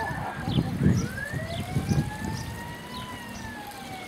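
A siren wailing: one slow rising tone that climbs for about three seconds and then begins to fall. Short high chirps are scattered through it.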